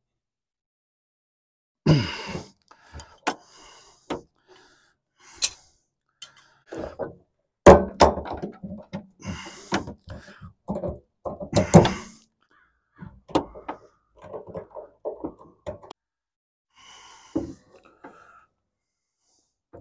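Irregular metal knocks, clanks and scraping from tools forcing open the locked gas cap on a 1971 Chevy Vega's fuel filler. The loudest blows come about 8 and 12 seconds in, with a run of quicker light taps after them.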